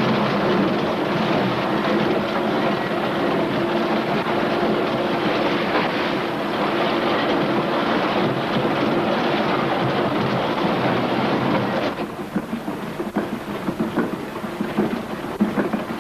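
Loud, steady clatter of underground coal-mining machinery with a low steady hum. About twelve seconds in it switches abruptly to a rougher, uneven clatter.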